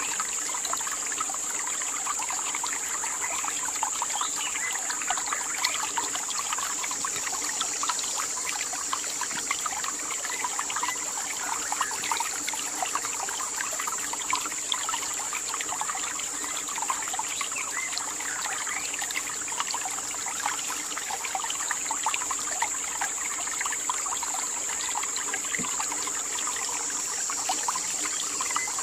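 Natural outdoor ambience: continuous trickling like running water, over a steady high-pitched hiss or drone.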